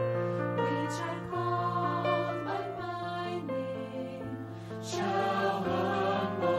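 Small mixed vocal ensemble of women's and men's voices singing a slow hymn in harmony, holding long sustained chords.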